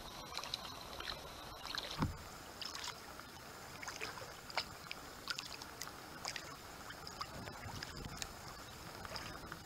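Kayak paddling: the paddle blades dip into calm water with small splashes and dripping ticks, and there is a dull thump about two seconds in.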